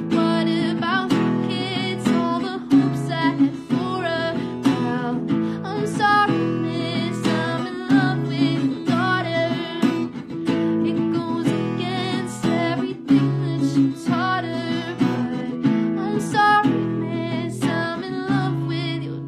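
A woman singing a slow song to her own strummed acoustic guitar, with steady regular strokes under the wavering sung melody.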